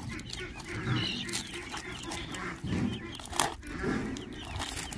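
Farmyard poultry clucking and calling over and over, with the crackle of tape being picked and peeled off a cardboard egg carton; a sharp rip about three and a half seconds in.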